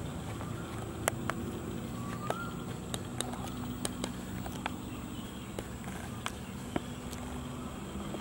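Outdoor ambience: a steady low rumble with a faint, thin, high steady tone, broken by about a dozen sharp, irregular clicks.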